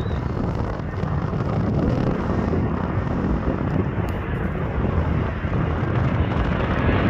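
Strong wind buffeting the microphone, a steady low rumble, with the jet engines of an approaching Boeing 737 faintly beneath it.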